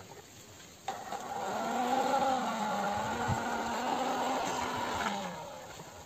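An engine-like vroom drone whose pitch bends gently up and down, starting with a click about a second in and fading out near the end.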